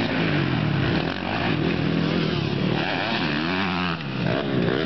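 Motocross dirt bike engines revving up and down as the riders take the jumps, the pitch rising and falling several times. Near the end a bike rides past close by.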